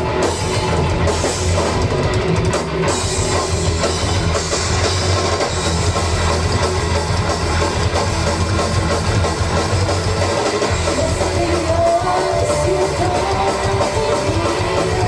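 Live rock band playing at full volume: drum kit and guitars, with a wavering melody line over them in the second half.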